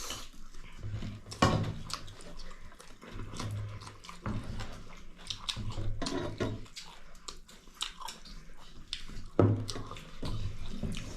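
People chewing food close to the microphone, with irregular wet mouth clicks and smacks.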